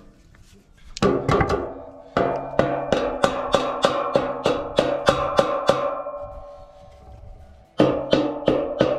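Background music: a steady beat of sharp, knocking percussion over held notes, starting about a second in, fading briefly near the end and then coming back suddenly.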